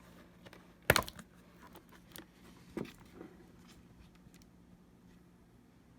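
A few sharp clicks and taps from handling an open MacBook Pro while trying to power it on with its new battery, the loudest about a second in and another near the three-second mark, over a faint steady hum.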